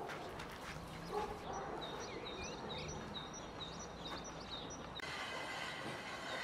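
A small bird chirping over and over, about three short chirps a second, over quiet outdoor ambience. About five seconds in, a steady buzzing hum takes over.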